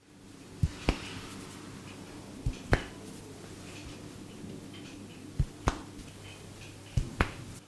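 Hair cracking: sharp pops as a barber tugs tufts of a client's hair, coming in four quick pairs, the two pops of each pair about a quarter of a second apart, over a faint steady hum.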